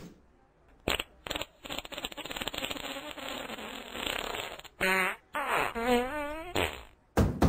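Cartoon fart sound effects: two short knocks about a second in, then a long sputtering fart, followed by drawn-out wobbling farts that bend up and down in pitch.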